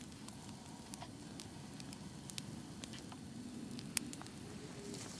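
Faint, scattered crackles and ticks of a wood campfire, with one sharper click about four seconds in.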